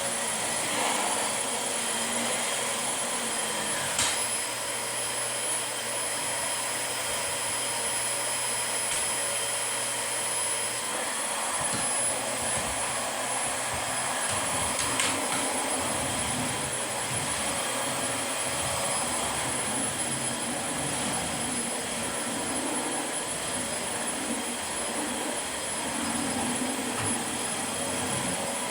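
Dyson DC25 Animal upright vacuum cleaner running steadily with a high whine and rushing air, with a couple of short knocks about 4 and 15 seconds in.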